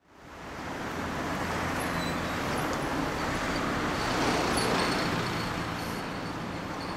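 A vehicle engine running amid road traffic noise, fading in at the start and swelling a little around the middle.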